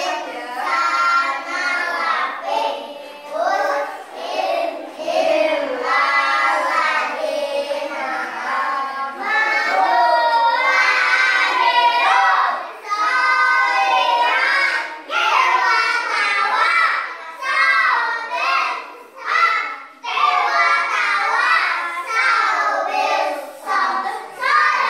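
A group of young children singing together, phrase after phrase, without a break for speech.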